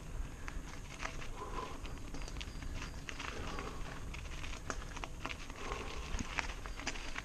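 Mountain bike rolling over a loose gravel track: the tyres crunch on stones with many small irregular clicks and pops, and the bike rattles. Under it runs a steady low rumble of wind on the helmet-mounted microphone.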